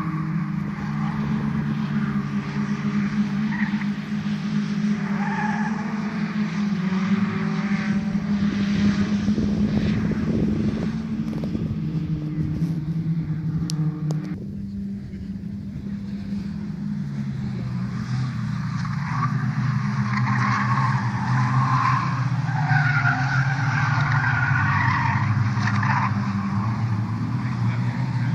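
Several Caterham race car engines running at once as a pack laps the circuit, the engine notes rising and falling in pitch as they accelerate and lift off. The sound dips about halfway through, then builds again.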